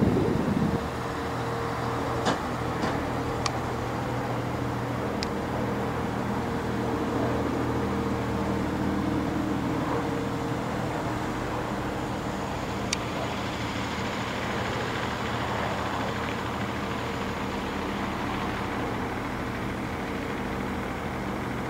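An engine running steadily at idle: an even, unchanging low hum. A few faint, short high ticks sound over it in the first half.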